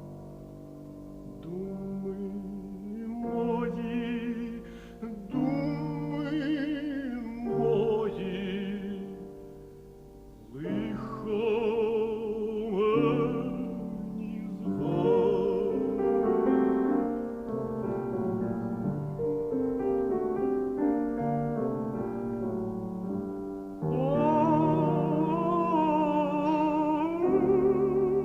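Operatic tenor singing with piano accompaniment, holding long notes with a wide vibrato and swelling to a loud sustained note near the end.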